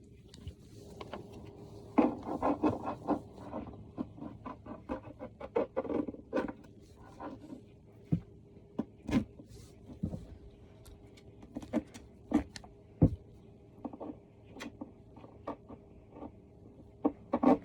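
Cat tree parts being handled and fitted together: irregular knocks, clicks and rubbing scrapes, busier from about two seconds in, over a faint steady hum.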